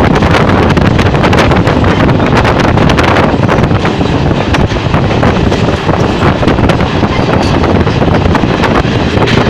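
Wind buffeting the microphone at an open window of a moving train, over the train's running noise: a loud, continuous rush with constant crackle.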